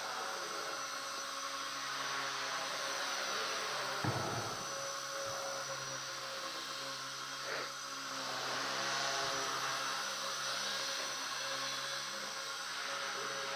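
Align T-REX 250 mini electric RC helicopter in flight: the brushless motor and main rotor give a steady high whine. A low thump comes about four seconds in.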